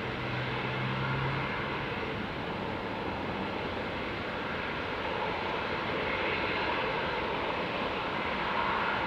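Boeing 777-200ER twin-engine jet airliner at takeoff, its engines a steady dense rush of noise. A low hum fades out in the first second or two, and the rush swells about six seconds in and again near the end.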